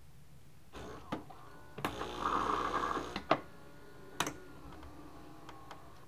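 Saeco Exprelia Evo superautomatic espresso machine starting the coffee part of a cappuccino: its grinder whirs for about a second and a half, with sharp clicks and clunks of the brew unit before and after, then a fainter steady machine whir.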